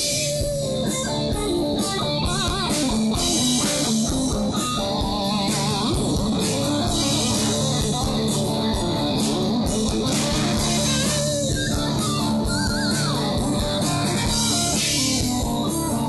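Live band playing blues-rock: an electric guitar lead with wavering, bent notes over guitar and drum kit.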